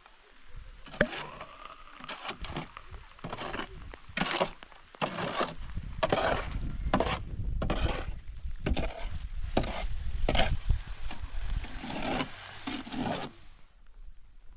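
Steel shovel scraping and scooping wet cement mortar in a metal wheelbarrow, a series of rough, irregular strokes that stop abruptly near the end.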